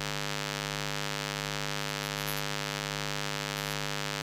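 Steady electrical hum with many evenly spaced overtones. Faint scratches of a pen writing on paper come through about two seconds in and again past three and a half seconds.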